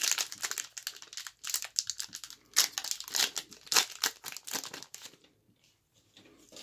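Foil wrapper of a 1990-91 Skybox Series II basketball card pack being torn open and crumpled by hand: a dense run of sharp crinkles and rips that dies away about five seconds in.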